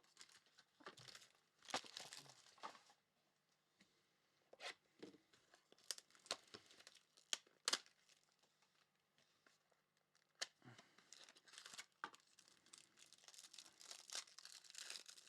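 Faint tearing and crinkling of trading-card pack wrappers as cards are handled, in short scattered rustles and clicks. There are two sharper snaps a little past halfway, and a longer crinkling stretch near the end.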